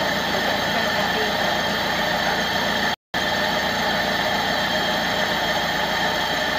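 Nissan GA16 1.6-litre four-cylinder engine idling steadily, running quietly on its newly replaced timing chain, without the metal-scraping noise of the old worn chain. The sound cuts out for a moment about three seconds in.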